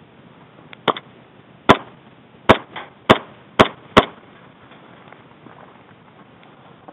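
Airsoft gunfire: five loud, sharp single shots in about two and a half seconds, unevenly spaced, with two fainter pops among them.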